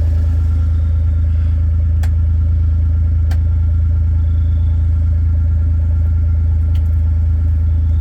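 Kawasaki Mule utility vehicle's engine idling steadily, with a few sharp clicks of its dash light switches being flipped as the LED lights are turned off.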